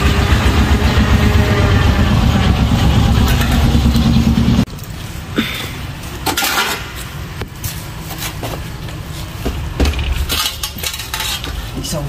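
A loud, steady low rumble that cuts off abruptly about four and a half seconds in, followed by scattered light clicks and scrapes of hands pressing sandy potting mix around a trunk in a plastic pot liner.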